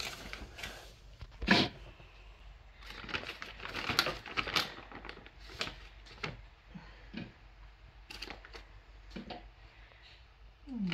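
Plastic bag crinkling and a spoon scraping and clicking as chunks of shea butter are scooped out and dropped into a bowl, in irregular small clicks and rustles with a sharper knock about a second and a half in.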